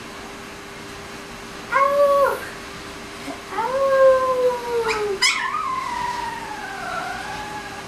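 A 20-day-old Alaskan Malamute–Siberian Husky puppy howling: a short howl about two seconds in, a longer howl falling in pitch a second later, then a higher, longer howl that wavers up and down.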